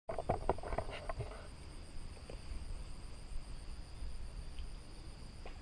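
Quiet outdoor ambience with a steady high, thin insect drone, the upper tone pulsing rapidly like cricket chirping. A few light clicks and rustles in the first second and a half, as of the rod or dry palm fronds being handled.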